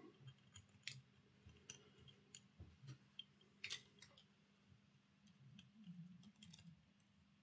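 Faint, scattered small clicks as the wheelsets of a Hornby OO gauge Class 3F Jinty model locomotive are seated in its chassis and handled, close to near silence.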